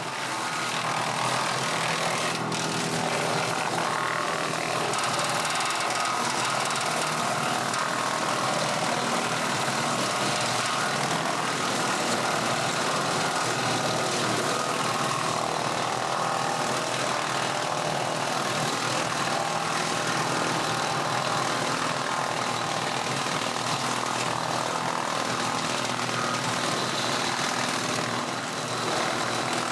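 Steady drone of running machinery, unbroken and at an even level throughout.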